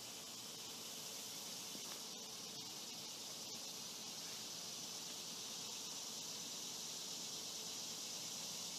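Steady, high-pitched chorus of insects droning evenly in the background.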